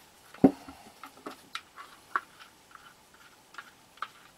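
Parts of a clear acrylic frame being handled on a table: one heavy clunk about half a second in, then a series of light, sharp clicks.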